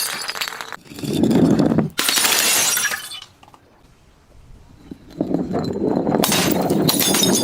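Glass being crushed and shattering, crunching and crackling. This comes in two bouts, the second starting about five seconds in, with a short lull between them. Each bout begins with a deeper crunch and turns into a bright splintering crackle.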